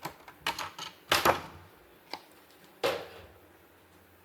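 Handling noise from unpacking a keyboard from its plastic cover: about five scattered knocks and rustles, the loudest about a second in.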